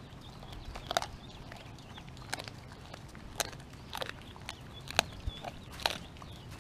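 A pit bull–husky mix dog chewing raw chicken, with about six sharp, irregular crunches of bone.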